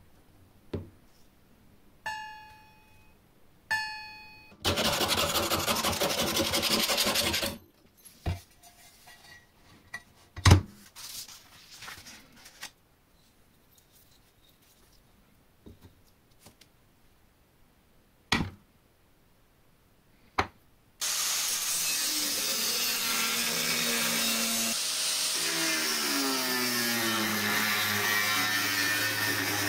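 Angle grinder cutting a titanium sheet, running steadily for the last nine seconds or so, its pitch shifting under load from about four seconds into the cut. Before it comes a string of separate workshop sounds: two short metallic rings, about three seconds of steady noise, and several sharp knocks.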